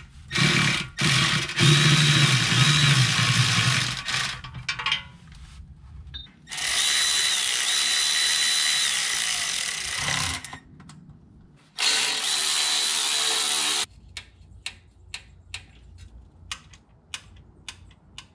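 A cordless electric ratchet runs bolts into a transmission pan in three bursts of a few seconds each, its motor whining and shifting pitch as the bolts draw up. Near the end only scattered sharp clicks remain.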